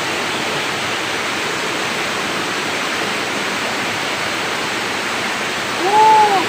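Steady rushing of river rapids, with a brief call that rises and falls in pitch near the end.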